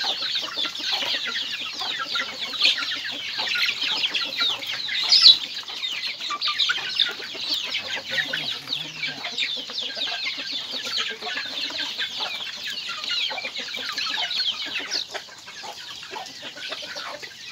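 A flock of native chickens and chicks, with many high chick peeps over the hens' clucking as they peck and feed. One louder squawk comes about five seconds in.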